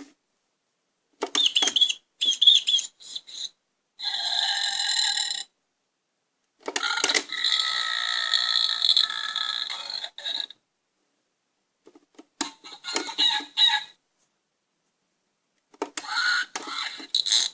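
Recorded sound effects played from the speaker of an Ugglys Pet Shop Gross Homes toy parrot cage: about six short clips set off one after another with silences between, one of them a steady electronic tone and one lasting about four seconds. Very loud.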